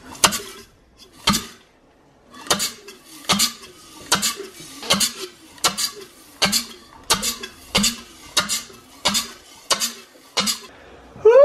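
Rebuilt Mazda 13B rotary engine being turned over by hand with a long bar on the crank pulley bolt, giving a short, sharp chuff about every 0.7 s from its open ports as the rotors go round. The chuffing is a good sign of compression on the fresh rebuild.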